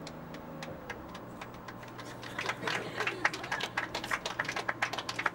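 A small group clapping, scattered at first, then thickening from about two seconds in into quick, irregular claps.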